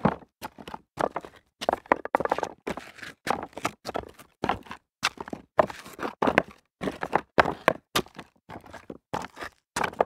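Footsteps walking on loose rock debris, each step a short crunch and grind of stones underfoot, at about two steps a second.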